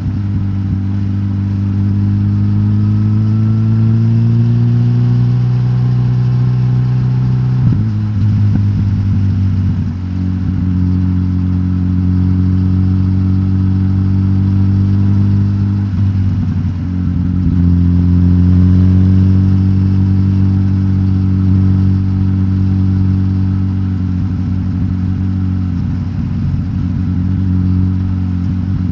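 Suzuki GSX-S1000GT's inline-four K5-derived engine running through its stock exhaust with the catalyst removed. Its pitch climbs slowly, then drops suddenly about eight seconds in and again about sixteen seconds in.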